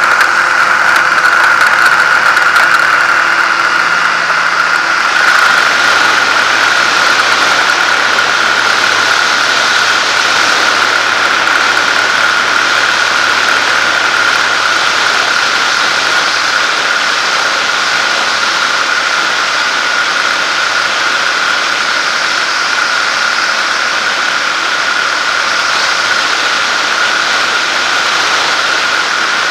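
Zenair 701 light aircraft's engine and propeller running steadily at takeoff power, with wind rush. Rattling from the rough dirt strip fades out about five seconds in as the aircraft lifts off and climbs.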